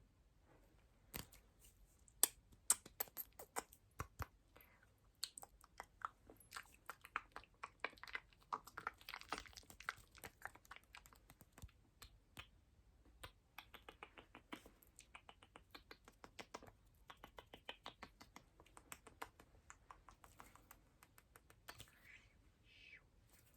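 Close-miked ASMR mouth sounds: a long, irregular run of soft, wet tongue clicks and lip pops, several a second, thickest around the middle and thinning out near the end.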